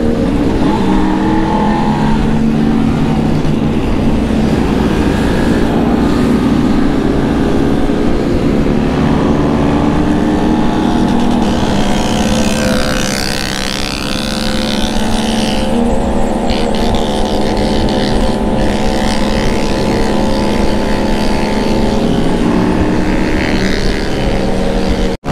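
Motorcycle engine running hard as the bike accelerates from about 60 to 90 km/h, its pitch slowly climbing, with wind rushing over the onboard camera microphone.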